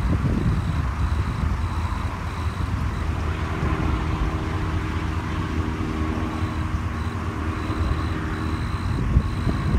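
Air-medical helicopter flying away after takeoff: a steady low rotor and engine rumble.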